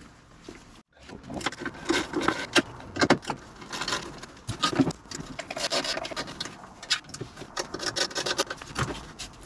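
Hands working under a Land Rover Discovery 2's dashboard at a lower bracket, with dense irregular clicks, knocks, rattles and scraping of metal and plastic trim. It starts after a brief silent gap about a second in.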